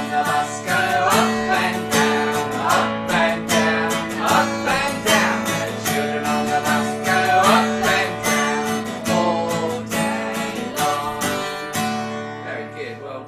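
Acoustic guitar strummed in a steady rhythm while a man and a woman sing a children's song along with it; the music fades somewhat near the end.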